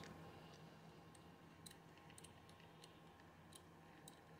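Near silence broken by a few faint, scattered metal clicks as the handle of a sight pusher's pusher screw is turned and the pusher block slides along its steel guide bar.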